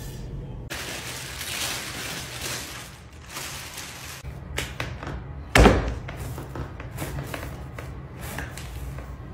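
Plastic wrapping rustling as it is pulled off a block of potter's clay. A single loud thud follows just past halfway as the heavy clay block hits the wooden table, then lighter pats of hands on the clay.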